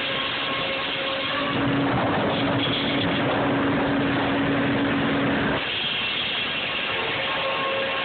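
Sawmill machinery running, with a large circular saw cutting through a board as it feeds past on powered rollers. A steady tone comes in louder about a second and a half in, holds, then drops off suddenly about two and a half seconds before the end.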